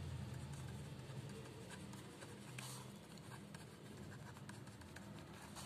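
Pen writing on paper: faint, continuous scratching of handwriting strokes with small ticks as the pen is lifted and set down.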